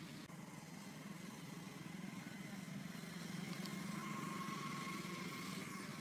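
Motorcycle engine running nearby: a steady low hum that grows a little louder in the second half, with a faint thin whine joining about halfway through.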